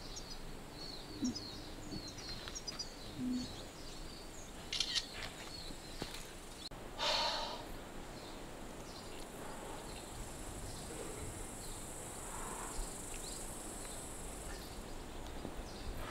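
Quiet outdoor ambience with faint bird chirps in the first few seconds. A few brief knocks and rustles come about five and seven seconds in, and a steady high hiss runs through the second half.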